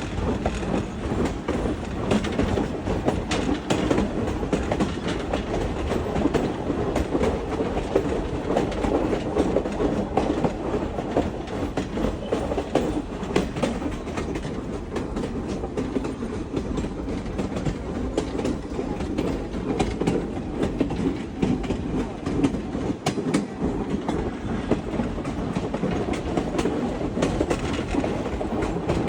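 A train rolling steadily along the track: a continuous rumble of wheels on rails with frequent clicks and rattles.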